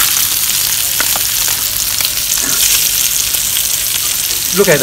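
Bacon, fried eggs and hot dogs sizzling on a hot griddle plate that has just been taken off the heat: a steady high hiss with a few faint ticks.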